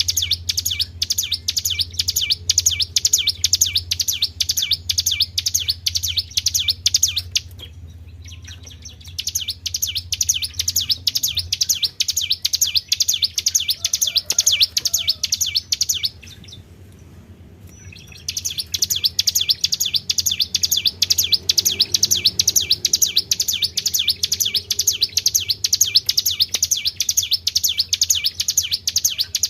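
Small songbird giving long runs of fast, evenly repeated high chirps, several a second, used as a lure song for training cage birds. The runs break off twice, near 7 s and 16 s, then start again, over a steady low hum.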